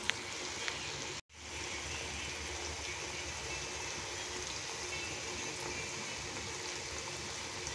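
Potato and egg curry sizzling steadily as it fries in a pan, its masala being cooked down so the eggs cook through. The sizzle breaks off for a moment about a second in, then carries on.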